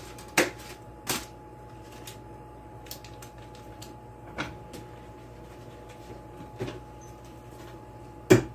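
Kitchen handling noise as a portion of sausage is taken from its wrapped roll and put into a small frying pan: a few scattered knocks and clicks, the sharpest near the end, over a faint steady hum.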